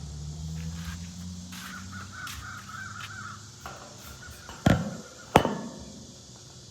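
A crow cawing twice, two loud harsh calls less than a second apart, over a low steady hum at the start.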